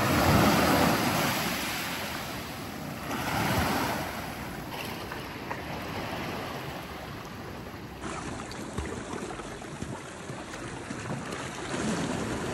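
Surf breaking and washing up a sand beach, with louder surges at the start and about three and a half seconds in.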